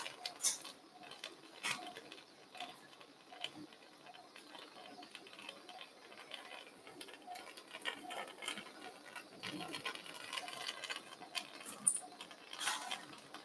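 Faint, irregular clicks and light taps from surgical instruments being handled during arthroscopy.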